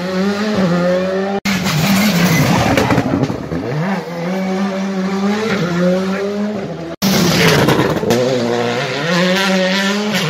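Rally cars accelerating hard past, engine pitch climbing and dropping again with each gear change, with stretches of tyre skid noise. The sound breaks off abruptly twice, about a second and a half and seven seconds in.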